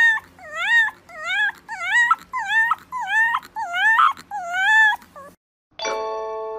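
A white fluffy puppy gives a run of short, high whimpering howls, about two a second, each call bending down and then up in pitch. They stop about five seconds in, and a few ringing bell-like chime tones follow near the end.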